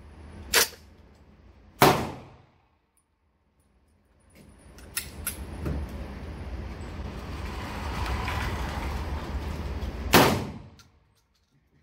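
Two loud metallic clacks from a 12-gauge bullpup shotgun's action being worked, then a single shot from the shotgun firing a slug about ten seconds in. The shot echoes briefly off the range walls. A steady rushing noise runs before the shot.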